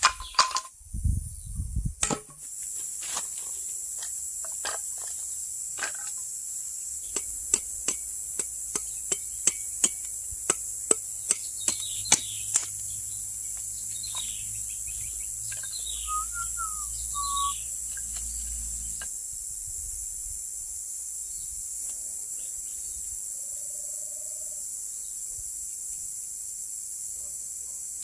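Steady, high-pitched chorus of insects such as crickets or cicadas, with a run of sharp knocks or taps through roughly the first half, several a second at their busiest. A few short bird chirps come near the middle.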